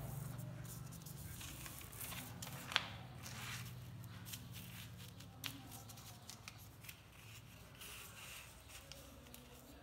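A sheet of lined notebook paper being unfolded and smoothed flat by hand: faint rustling with a few sharp crinkles, the loudest about three seconds in.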